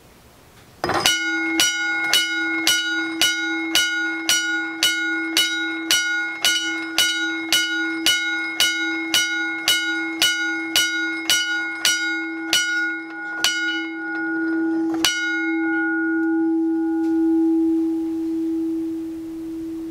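Western Railroad Supply motorized railroad crossing bell: an electric motor turns brass gears that swing the striker against the bell about twice a second, each strike ringing into the next. About fifteen seconds in, the strikes come further apart and stop, and the bell's tone rings on.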